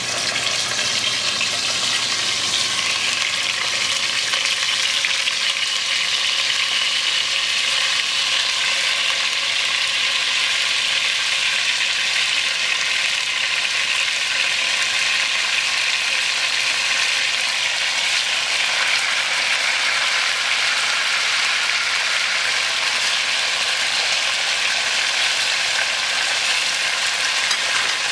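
Pieces of wine-marinated rabbit sizzling as they fry in hot olive oil in an enameled cast-iron pot, swelling at the start as the pieces go in, then a steady, even sizzle.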